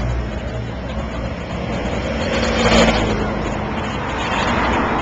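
Motor vehicles driving past along a street, engines humming steadily, with one passing close a little past the middle and another near the end.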